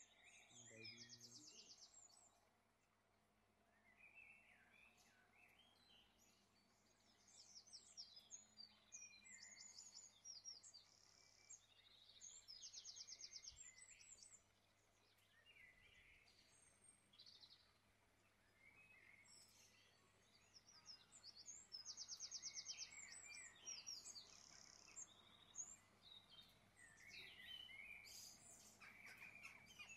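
Faint birdsong: several birds giving short chirps and quick high trills, coming and going in bursts.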